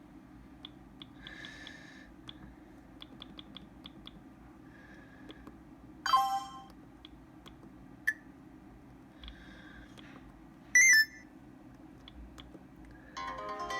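Sony Ericsson W902 mobile phone being worked through its menus: many light key clicks and a few soft short beeps. Two short loud tone bursts come about six and eleven seconds in, and a ringtone starts playing near the end.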